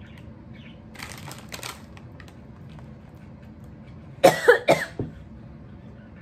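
A woman coughing three or four times in quick succession while eating a spicy fried snack, with a short rustle about a second in.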